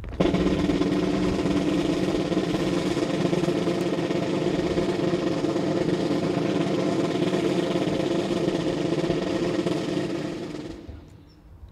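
A military band holding one long, steady chord over a drum roll. It starts abruptly and fades out near the end.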